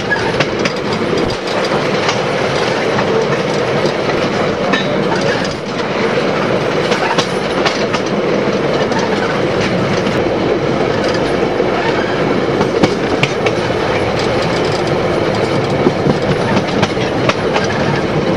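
Narrow-gauge excursion train running along the track: a steady rumble of the carriages with the wheels clicking over the rail joints.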